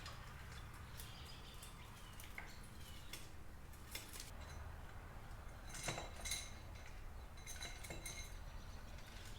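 Faint, scattered metallic clinks and taps of tools and engine parts being handled while the camshaft is lifted out of a Honda CB650's cylinder head and the cam chain is secured. A few of the clinks ring briefly, the clearest about six seconds in and again near eight seconds.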